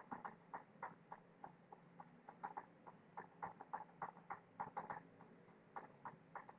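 Faint, irregular clicking of a computer mouse and keyboard, several clicks a second, over a low hum.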